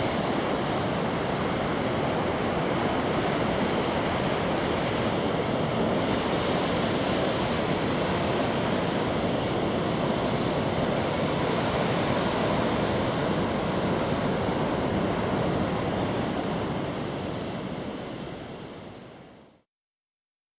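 Sea surf breaking on the shore, a steady rushing wash that fades out near the end.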